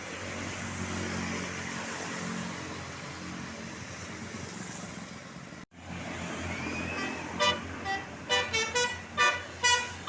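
Road traffic, then after a brief dropout a tourist bus's 'telolet basuri' musical multi-tone horn plays a quick run of short notes of differing pitch.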